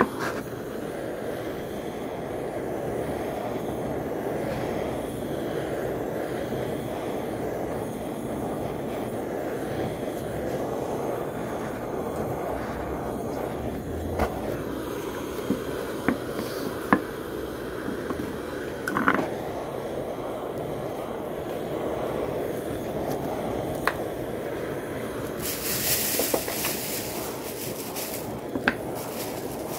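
Handheld butane torch flame running steadily while it scorches the face of a pine log slice, with a few small clicks and knocks scattered through and a brief brighter hiss a few seconds before the end.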